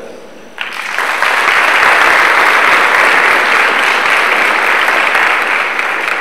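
Audience applause, breaking out about half a second in and filling out within another half second, then holding steady.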